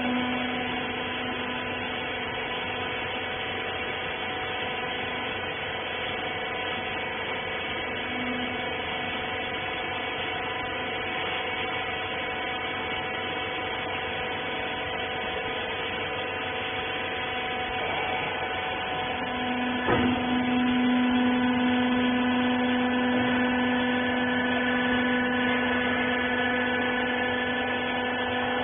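Vertical rags baler's hydraulic power unit, its electric motor and pump running with a steady whine. About 20 s in there is a knock, and a lower tone comes in louder as the pump takes more load.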